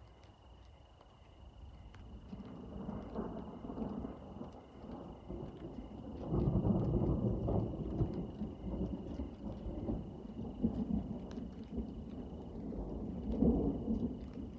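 Distant thunder rolling: a low rumble that builds over a few seconds, is loudest about six seconds in, and swells again near the end.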